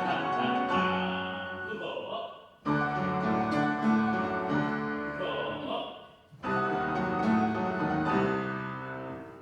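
Church choir singing with piano accompaniment in sustained phrases, with new phrases starting sharply together about a third and two-thirds of the way through.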